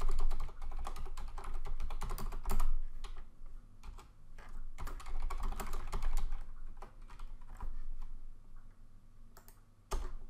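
Computer keyboard typing in quick bursts of keystrokes with short pauses between them, and one louder keystroke near the end.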